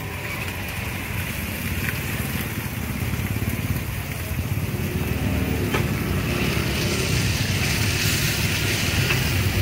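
Passing motorbikes and street traffic over the sizzle of minced meat frying in a wide wok on a gas burner, the noise swelling in the second half. A metal spatula clicks against the pan a couple of times.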